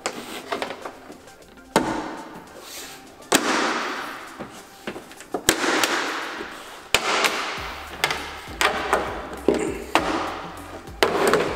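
Plastic trim clips popping loose as the Mustang's rear decklid trim panel is pried off: a series of sharp snaps, each followed by a short rattle and scrape of the panel.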